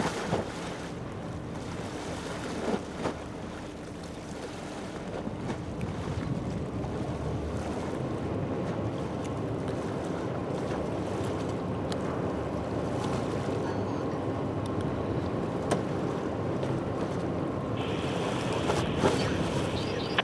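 Engine of a small general cargo ship running steadily with a low hum as she passes close, growing louder from about four seconds in, over wash of water and wind on the microphone. A higher hiss joins near the end.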